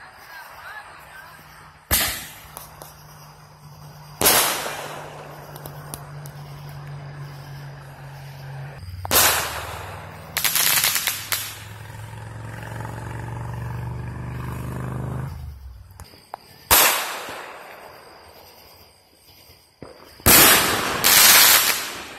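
Consumer aerial fireworks bursting overhead: six loud bangs a few seconds apart, some in quick clusters, each with a short fading tail. A low steady drone runs underneath for much of the time and drops in pitch partway through.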